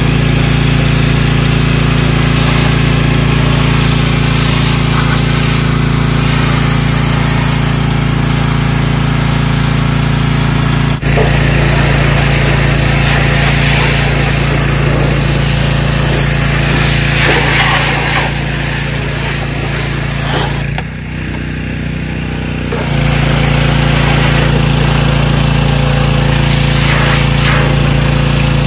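Gasoline-engine pressure washer running steadily, the engine's constant note under the hiss of the water jet spraying a car. About three-quarters of the way through, the spray stops for about two seconds while the engine keeps running, then starts again.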